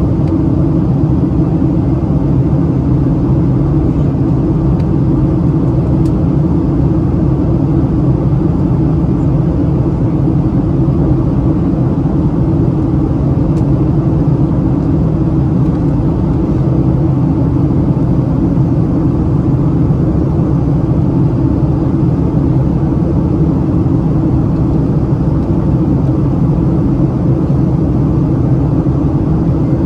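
Steady low rumble of engine and airflow noise inside the cabin of a Boeing 737-700, heard beside the wing and its CFM56-7B engine while the jet descends through cloud.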